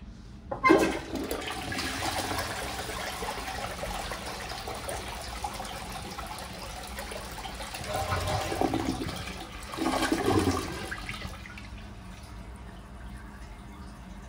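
1976 Armitage Shanks Unimyna close-coupled single-trap syphonic toilet, its cistern fitted with a Turbo 88 replacement syphon, flushing. It starts suddenly about half a second in, then water rushes steadily into the bowl, with two louder surges later on before it dies down to a quieter trickle as the cistern refills.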